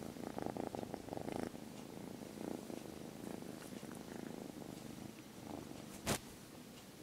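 Young orange-and-white kitten purring close up as it is petted, strongest in the first second and a half and softer after. A single sharp knock about six seconds in.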